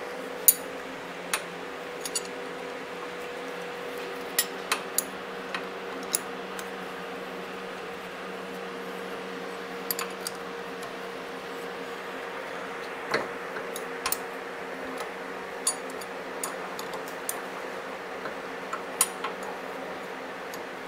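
Steady hum of a garage fan, with irregular sharp metallic clicks and clinks from hand tools working on the motorcycle's clutch cable adjustment as it is loosened.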